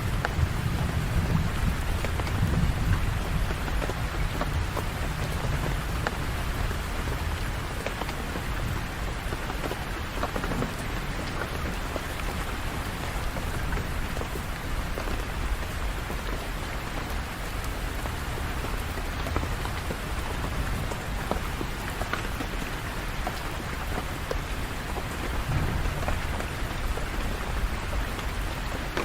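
Steady rain falling, with a low rumble of thunder in the first few seconds and briefly again near the end.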